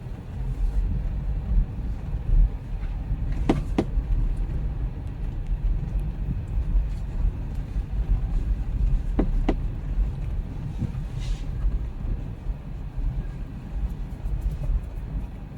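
Low, steady rumble of a car driving, with two brief clicks or knocks, about three and a half and nine seconds in.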